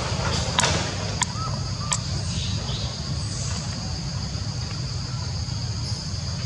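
Outdoor ambience of a steady, high-pitched insect drone over a low rumble, with three sharp clicks and a couple of short chirps in the first two seconds.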